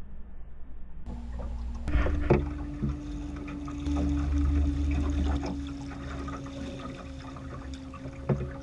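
River water splashing and washing along a fishing boat's hull close to the microphone, over a steady low motor hum, with a few knocks against the boat.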